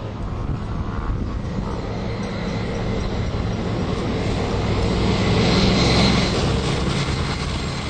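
Leclerc main battle tank driving past at speed. Engine and tracks rumble with a high steady whine on top, growing louder to a peak about six seconds in, then easing.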